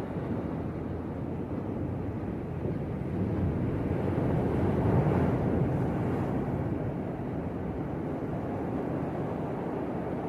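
Sea waves surging and breaking, swelling to their loudest about halfway through, with wind on the microphone.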